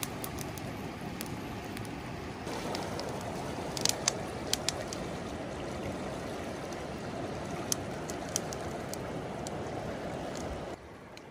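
River water flowing steadily, with a few sharp clicks around the middle. The sound drops off near the end.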